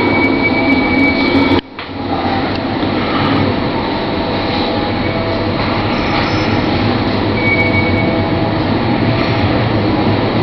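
Railway carriage rolling slowly along the rails of a train ferry's deck: a steady rumble and hum with a faint high squeal now and then. The sound dips out abruptly for a moment just under two seconds in.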